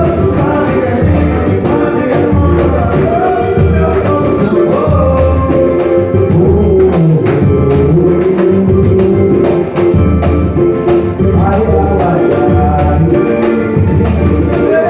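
Singing over drums, with heavy low drum beats repeating under the voices and quicker percussion strokes throughout.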